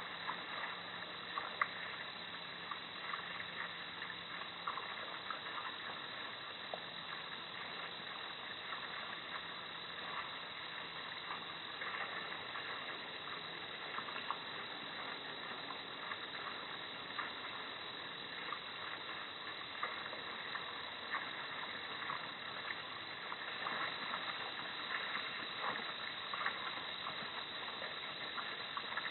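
Steady outdoor night ambience: an even hiss with many faint ticks scattered through it.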